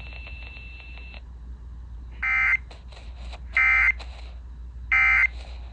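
Emergency Alert System end-of-message signal: three short bursts of SAME digital data tones, the "NNNN" code, sent about 1.4 seconds apart starting about two seconds in. It marks the end of the alert, here the close of the monthly test.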